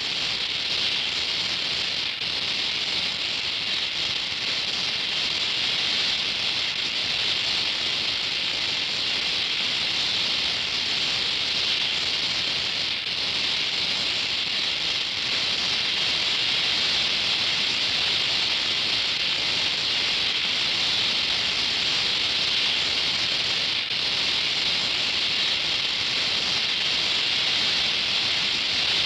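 Oxy-acetylene welding torch flame hissing steadily as it melts a puddle for a vertical weld on steel plate.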